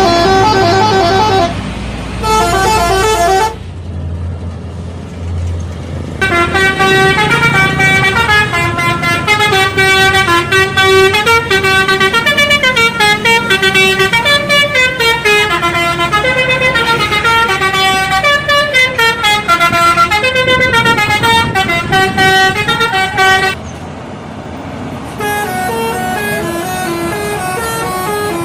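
Indonesian bus telolet horn playing quick tunes of stepping notes: two short blasts, then a long unbroken melody lasting about seventeen seconds, and a quieter tune near the end. In a pause about four seconds in, a bus engine's low hum is heard.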